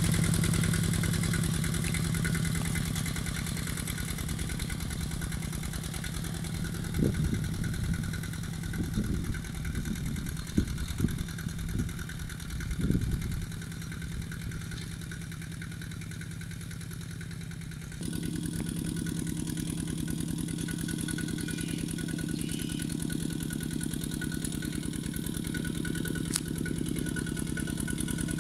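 Kubota two-wheel walking tractor's single-cylinder diesel engine running steadily as it ploughs a dry field on cage wheels. It grows fainter as the tractor moves away, with a few low bumps partway through, then is suddenly louder again close up about two-thirds of the way in.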